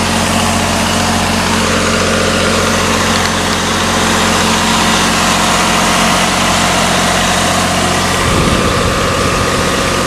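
Boom lift's engine running steadily under load while the boom raises the work platform.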